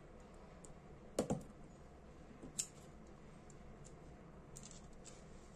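Small sharp clicks and light ticks from handling the metal parts of a Dunhill Dress lighter by hand: a quick double click about a second in, a single click near halfway, and fainter ticks between.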